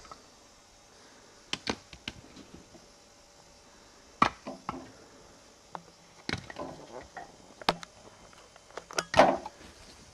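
Scattered sharp knocks and snaps of wood, irregularly spaced, the loudest pair near the end.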